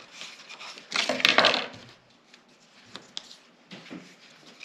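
Scissors cutting and handling stiff cardstock: a loud, scratchy paper rustle about a second in, then a few soft clicks and ticks as the card is moved around.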